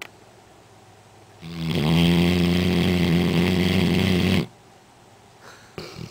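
Black Labrador retriever snoring really loud: one long snore of about three seconds with a steady pitch. It starts about a second and a half in and stops abruptly.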